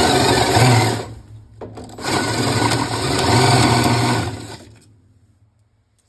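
DeWalt cordless drill running twice, a short burst and then a longer run, turning a socket on an extension down inside a washing machine agitator to back out the stripped agitator bolt. It stops about a second before the end.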